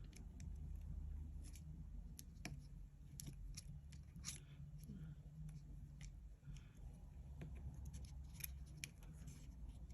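Faint, scattered small clicks and taps of hand work on an opened iPhone while the screen's flex cable connectors are pressed onto the logic board, over a steady low hum.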